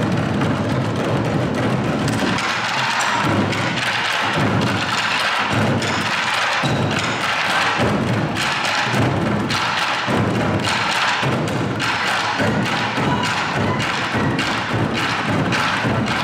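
Modumbuk ensemble of Korean barrel drums, about twenty drummers, beating a fast, driving rhythm together, many strokes a second in a steady repeating pattern.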